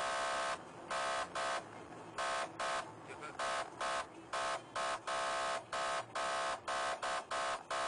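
Police patrol car's electronic siren sounding its horn tone in rapid, irregular short blasts, a steady buzzing note switched on and off about twice a second, used to order the chased car to stop.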